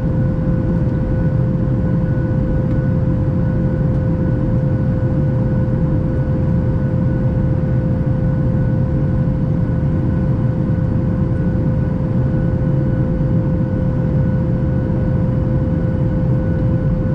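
Steady cabin noise inside a Boeing 737 MAX 8 in flight: the CFM LEAP-1B engines and rushing air make a deep, even rumble, with a steady hum and a fainter, higher whine held on top.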